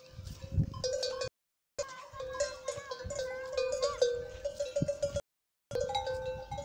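Metal animal bells clanking and ringing irregularly, the jangle of bells on walking camels. The sound cuts out completely twice, for about half a second each time.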